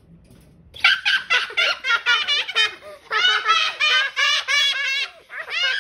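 A child laughing hard in rapid high-pitched bursts, about four or five a second, starting about a second in and going in three long runs with short breaths between.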